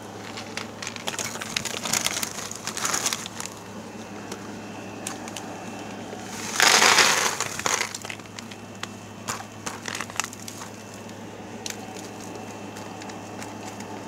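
A plastic snack bag of pretzels crinkling while hard mini pretzels rattle and crunch. Scattered clicks throughout, with a louder burst of rustling about six and a half seconds in.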